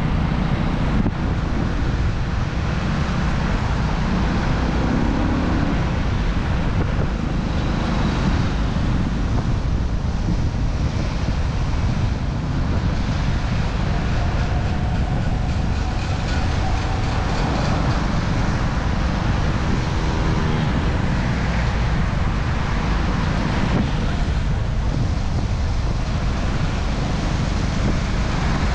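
A vehicle on the move: a steady low rumble of engine and road noise that holds level throughout.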